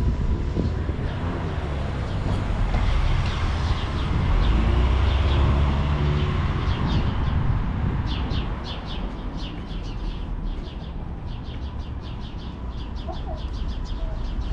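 Street ambience: a steady low traffic rumble that swells about four to six seconds in. Small birds chirp in quick runs throughout, thickest in the second half.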